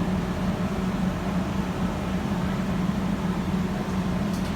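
Heavy machinery aboard a fishing boat running steadily with a low drone. A few faint ticks come near the end.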